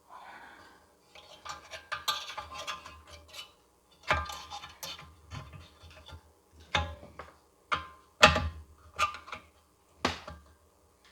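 Metal parts of a lawn mower's recoil starter being handled and worked by hand: irregular clicks, rattles and clunks, with a few sharper knocks.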